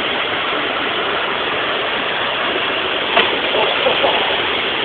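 Waterfall's rushing water, a steady, unbroken noise, with a single sharp click about three seconds in.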